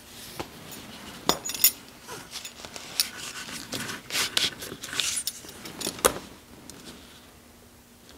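Leather belt being handled and buckled: its solid-brass, nickel-finished heel-bar buckle clinks and the leather rubs, giving a scattering of light metallic clicks and rustles.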